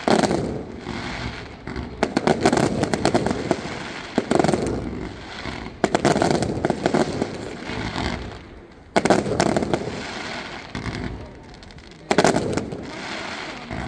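Aerial fireworks shells bursting in volleys, groups of sharp bangs every couple of seconds with crackling between them.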